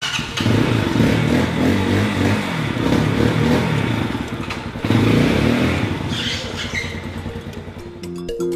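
CF Moto 230 Dual's carbureted engine revving. It surges about half a second in and again about five seconds in, then eases off.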